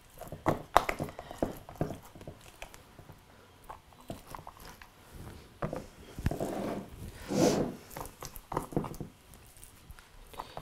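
Handfuls of raw elk meat being pushed through a canning funnel into a glass mason jar: irregular wet squishing with light knocks and clicks of the funnel and jar.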